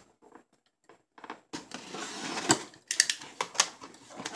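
Cardboard shipping box being cut open with a box cutter and pulled apart: faint ticks at first, then from about a second and a half in, dense scraping and rustling with a few sharp clacks.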